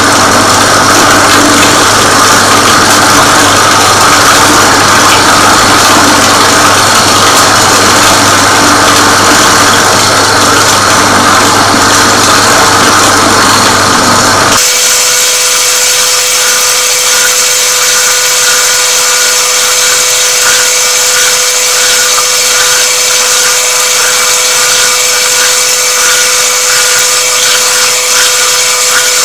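Meat bowl cutter (Kutter) running steadily, its rotating knives chopping beef, bacon and ice into a fine Leberkäse batter. About halfway through the machine's sound changes abruptly: the low hum drops away and a steady mid-pitched whine with high hiss is left.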